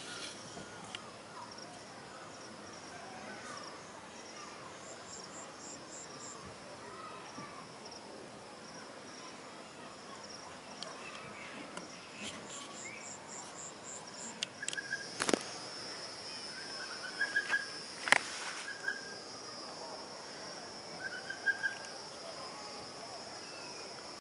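Night insects calling: a steady high-pitched trill with short runs of rapid high chirps, joined in the second half by brief lower chirps. Two sharp clicks, louder than the calling, about two thirds of the way in.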